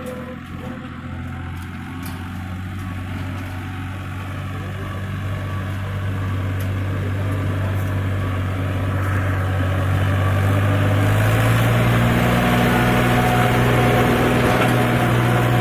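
Diesel engine of a JCB 3DX backhoe loader running steadily, growing louder and revving up to a higher pitch about two-thirds of the way through.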